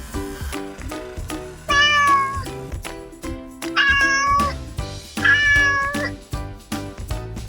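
Domestic cat meowing three times, each meow under a second long, over background music with a steady beat.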